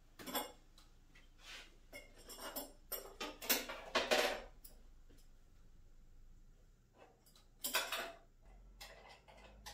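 Small metal clinks and clanks of U-bolt hardware being handled and fitted by hand, scattered irregularly, with the loudest cluster of clatter about three and a half to four seconds in and another short burst near eight seconds.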